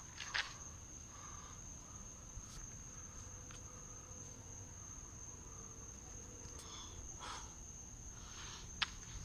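Steady high-pitched trill of night insects, with a few faint footsteps or camera-handling knocks, one near the start and two near the end.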